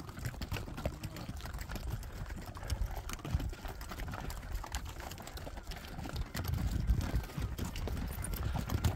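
Hooves of passing pack mules and horses clopping on a stony trail, an irregular clatter of many hoof strikes.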